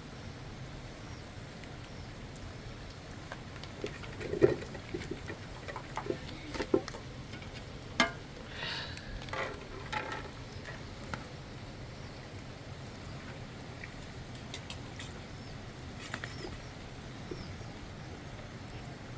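A handful of scattered knocks and clicks over a steady low background hiss, clustered a few seconds in, with the sharpest knock about four seconds in.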